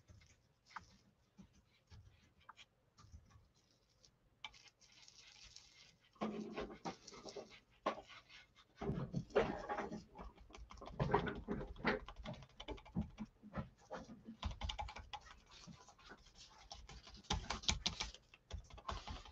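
Foam blending dome dabbing Distress Micro Glaze wax through a plastic stencil onto cardstock: faint, irregular, rapid crackling taps, starting about six seconds in.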